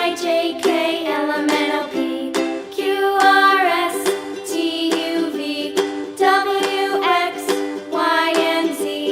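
Bright children's background music led by a strummed ukulele, with a sung or melodic line over it.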